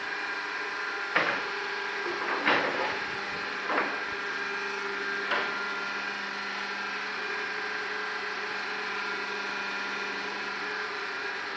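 ZCJK4-15 concrete block-making machine running, its electric motor and drive giving a steady hum. Four sharp metal knocks come in the first half, about one every second and a half, then the hum carries on alone.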